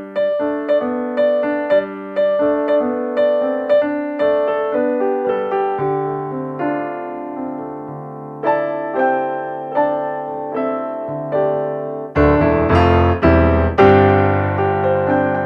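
Background piano music: evenly paced notes, each struck and fading, growing fuller and louder about twelve seconds in.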